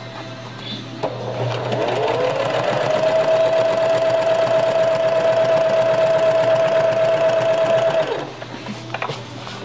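Singer electric sewing machine stitching fabric. Its motor winds up about a second in, hums steadily for about five seconds, then slows and stops near the end. A few light clicks follow.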